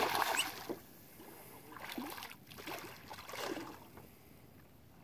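A hooked fish thrashing at the surface beside a boat, a loud splash at the start, followed by a few smaller splashes and water sloshing.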